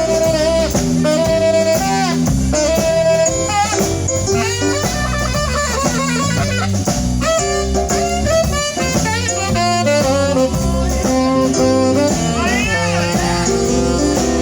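Live band playing an instrumental break of a blues-style song, a lead instrument soloing over a bass line and drums.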